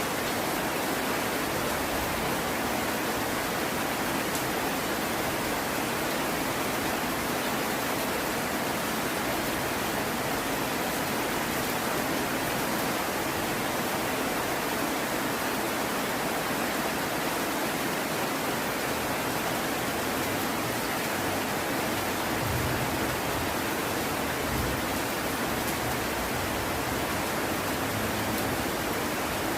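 Heavy rain falling steadily, an even hiss without pause.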